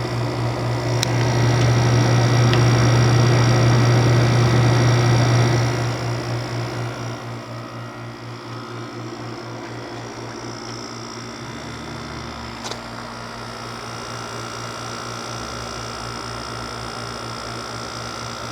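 Haier HWR06XC3-T 6000 BTU window air conditioner running, a steady compressor and fan hum with a low drone. It is louder for the first five seconds or so, then settles to a quieter steady hum.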